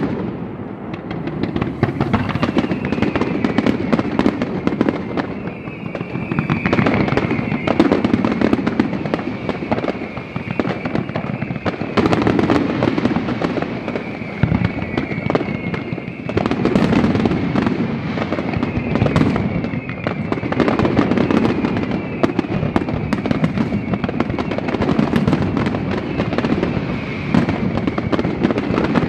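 Fireworks finale: a dense, continuous barrage of aerial shells banging and crackling. High whistling tones slide slightly down in pitch again and again over the bursts.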